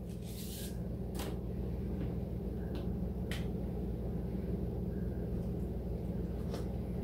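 Quiet kitchen room tone: a steady low hum, with a few faint light clicks scattered through it.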